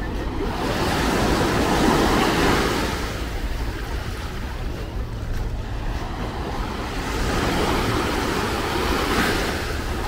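Small waves washing up on a sandy shore, two swells of surf, one about a second in and one about seven seconds in, over a steady low rumble of wind on the microphone.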